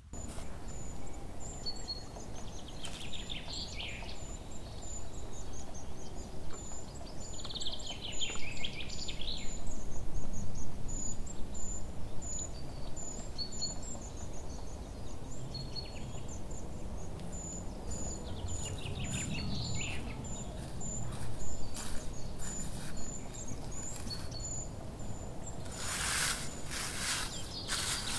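Small songbirds calling in the forest: a long run of thin, evenly repeated high notes with a few short warbling phrases, over a steady low outdoor background noise. Near the end, dry fallen leaves rustle and crunch as they are grabbed up by hand.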